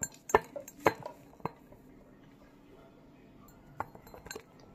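Several sharp clicks and knocks of small hard objects against a hard tabletop: four in the first second and a half, then two more near the end.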